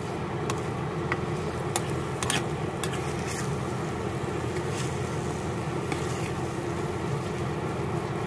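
Purple glutinous rice cooking in coconut cream in a pan, stirred with a plastic spatula: a steady sizzling rush with several short scrapes and clicks of the spatula against the pan in the first half.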